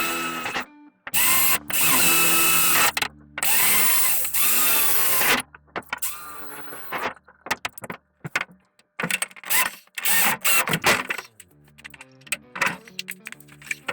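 Power drill boring holes through sheet metal, in runs of a second or two, the bit squealing as it cuts. Near the end it goes in short stop-start bursts.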